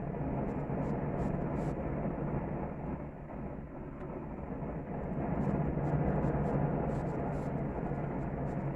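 Gas grill burners running with a steady low rushing hiss under a tri-tip searing on the grates, with scattered faint crackles and pops from the sizzling meat.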